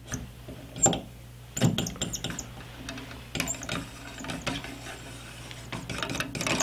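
A brass cleaning rod being handled and worked at the muzzle of a .22 rifle: scattered light clicks and rubbing, busier in the second half.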